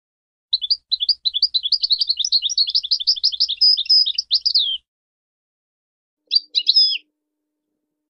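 European goldfinch singing: a rapid twittering phrase of quick, liquid notes lasting about four seconds, then a short burst of a few more notes near the end.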